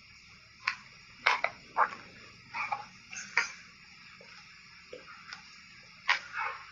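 Refrozen shaved ice coated in matcha powder being chewed, giving irregular sharp crunches with short pauses between them, loudest in the first two seconds.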